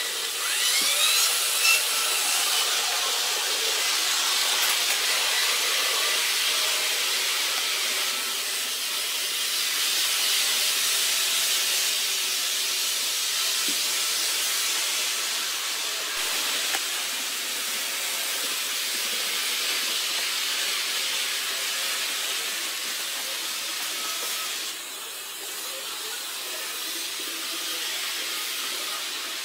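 Steady hissing whir of model trains running on a model railway layout, with a faint motor whine underneath. It drops somewhat in level about 25 seconds in.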